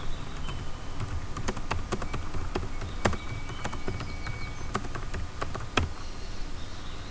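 Irregular clicks of a computer keyboard being typed on, with louder single clicks about three seconds in and just before the six-second mark. A faint steady high-pitched whine runs underneath.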